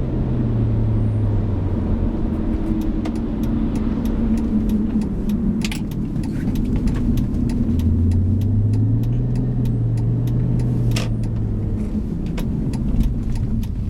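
BMW 330ci ZHP's 3.0-litre inline-six running under way, with steady road noise. The engine note eases off in the first couple of seconds; about eight seconds in it climbs in pitch as the car accelerates and holds there for a few seconds before fading.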